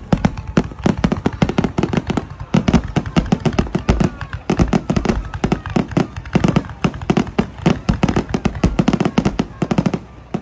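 Aerial fireworks display: a rapid, continuous barrage of shell bursts and crackling bangs, several a second, thinning out near the end.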